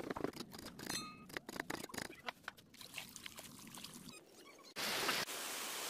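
Cleaver chopping garlic on a wooden chopping board, a quick run of sharp knocks, then water splashing as meat is washed by hand in a plastic basin. About five seconds in, a steady hiss starts suddenly.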